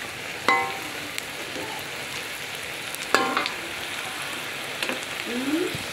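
Oil sizzling steadily in a steel wok as slabs of food deep-fry. A metal spatula clanks against the wok twice, about half a second and three seconds in, and each clank leaves a brief metallic ring.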